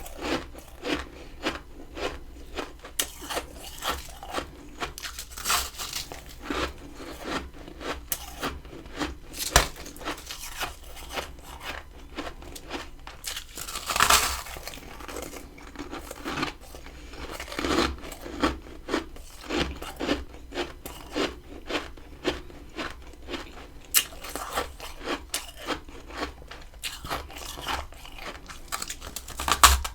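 Close-up biting and chewing of freezer frost ice, a steady run of short crunches with a longer, louder crunch about 14 seconds in.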